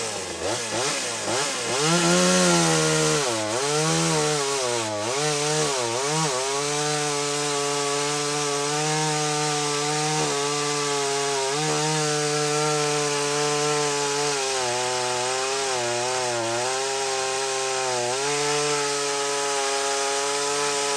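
Vevor 25cc two-stroke top-handle chainsaw at full throttle cutting through a log, the chain chewing wood. The engine pitch swings up and down in the first few seconds as the chain bites, then holds high. It sags under load for a couple of seconds past the middle, recovers, and drops near the end.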